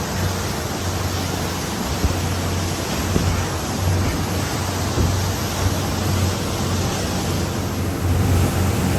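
Tour boat's engine running with a steady low hum under a constant rush of wind and water.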